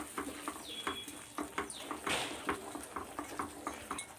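Spoon scraping and tapping in a pan while stirring a thickening coconut, sugar and milk-powder mixture for coconut burfi, a steady run of short irregular scrapes.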